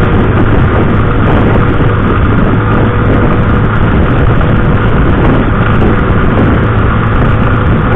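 Loud wind rushing over the microphone of a moving vehicle, with a steady low engine hum underneath.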